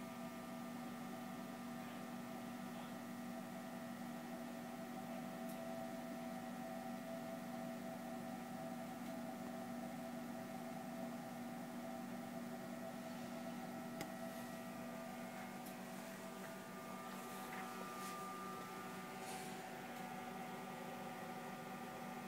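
Refrigeration compressor of a home-built environmental chamber running with a steady, fridge-like hum, with a faint click about two-thirds of the way through.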